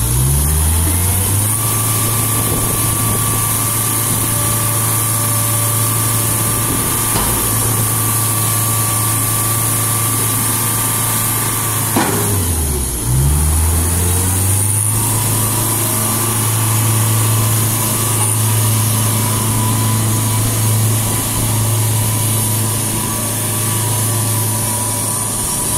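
Engine of a CY-20 2 m³ underground mining loader (scooptram) running as the machine drives. The revs climb at the start, dip and climb again about halfway through, then hold steady.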